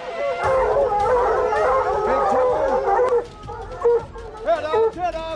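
A pack of hunting hounds baying and howling together, many voices overlapping. It thins to a few separate bays near the end.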